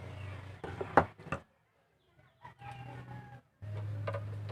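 Sharp clicks and knocks from screws and plastic parts being handled during reassembly of an Epson L120 printer, the loudest about a second in, over a steady low hum. A rooster calls briefly in the background around the middle.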